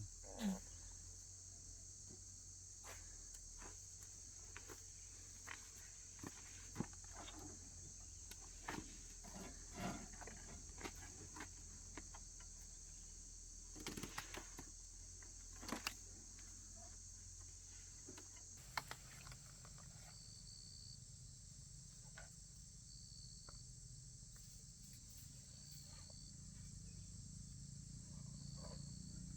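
Steady high-pitched chorus of insects, with scattered light clicks and knocks over it.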